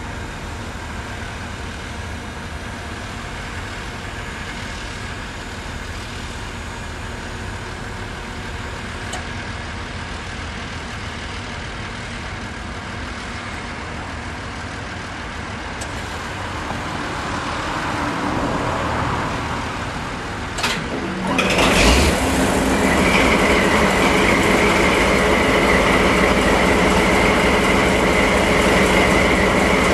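JNR Class DE10 diesel locomotive's V12 diesel engine starting. A steady low rumble builds into a rising noise, a sharp click comes about two-thirds of the way in, and then the engine fires and runs steadily and much louder, with a high whine over it.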